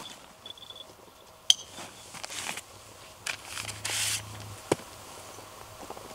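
Camping gear being handled: a single sharp click about one and a half seconds in, a few soft knocks, and a short rasping scrape around four seconds while a wooden bow saw is handled.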